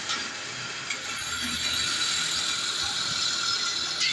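Pillar drill press cutting into a metal sewing machine plate: a steady high-pitched whine of the cutter in the metal, with mechanical clicking from the machine and a sharp knock near the end.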